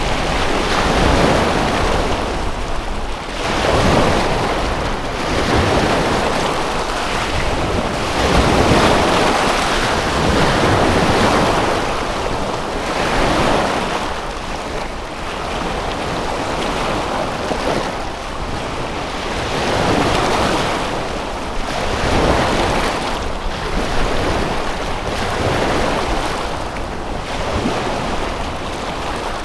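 Waves washing onto a lake shore, a steady rush of water that swells and falls back every two to three seconds.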